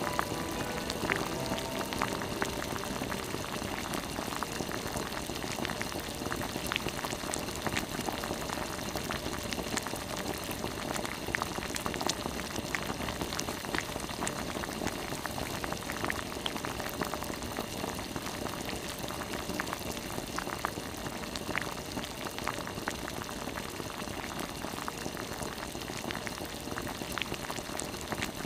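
A pot of spicy soy-and-chili gizzard shad braise boiling hard: steady bubbling with many scattered small pops.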